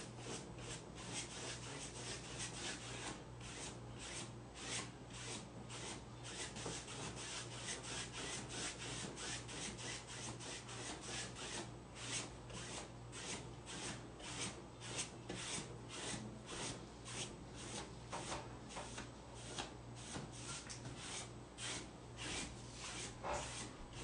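A paintbrush swept back and forth over decoupage tissue paper on a tabletop, a dry brushing hiss repeating at about two strokes a second.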